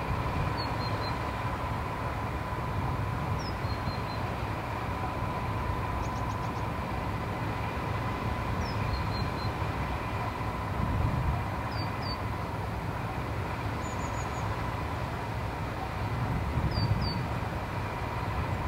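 Class 14 diesel-hydraulic shunter D9516, with its Paxman Ventura engine, idling: a steady low rumble with a thin steady tone above it. A small bird chirps briefly several times over it.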